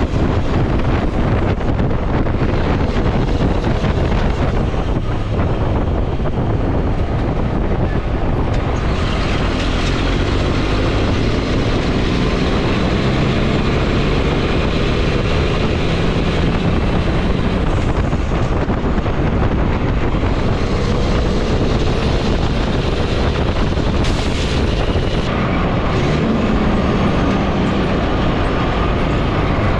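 A heavy farm vehicle's engine running steadily under a continuous low rumble, its engine note drifting up and down a little.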